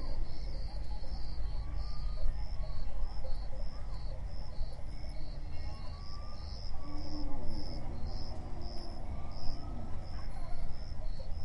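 Insect chirping: short, high, evenly spaced chirps about twice a second, over a steady low rumble.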